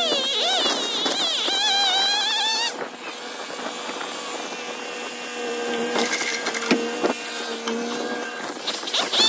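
Background music with a wavering melody that stops about a third of the way in, leaving a motor idling steadily, with a few knocks about two thirds of the way through.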